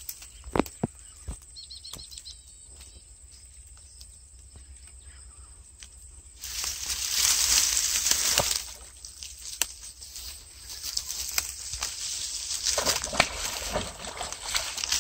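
Water splashing in irregular bursts as a hooked big catfish thrashes at the surface. The loudest burst starts suddenly about six seconds in and lasts about two seconds, and more splashing comes near the end. A bird twitters briefly about two seconds in.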